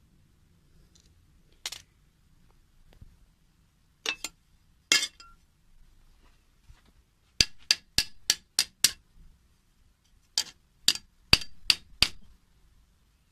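Sharp metallic clanks of metal striking metal. A few scattered knocks come first, then a quick run of six strikes about halfway through and another run of five near the end, three or four a second.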